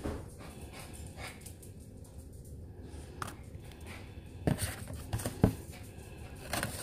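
Paper and cardboard rustling as the contents of a beauty subscription box are handled, with scattered small clicks and two sharper knocks in the second half.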